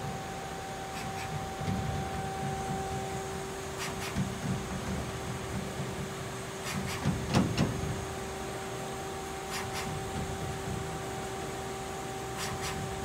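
DMC DL8TH CNC turning center running a peck-drilling cycle: a steady whine from the spindle and drives over a low rumble, with a few sharp clicks from the cut, the loudest cluster about seven seconds in.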